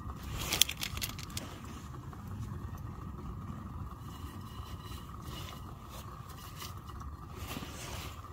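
Clear plastic tea-bag wrapper crinkling as it is torn open, loudest about half a second in, followed by scattered small rustles and clicks as the tea bag is dropped into a steel mug. A steady low rumble runs underneath.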